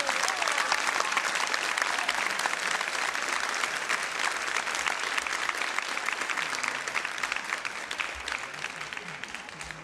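Audience applauding: dense, even clapping that starts just as the music ends and slowly dies down toward the end.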